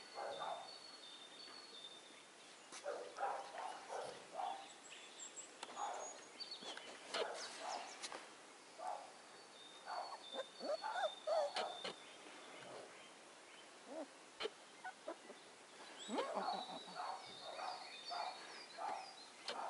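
Short animal calls at irregular intervals, with small birds chirping high now and then in the background.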